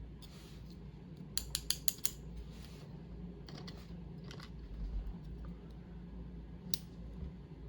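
Small metal clicks from pinning tweezers and lock pins while driver pins are picked out of a lock being gutted. A quick run of about six clicks comes a little over a second in, with a few single clicks later, over a low steady hum.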